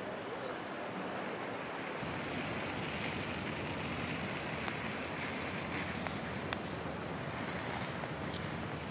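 Steady rushing street noise of traffic on a slushy, snow-covered road, with wind on the microphone; the low rumble gets fuller about two seconds in, and a couple of faint clicks come past the middle.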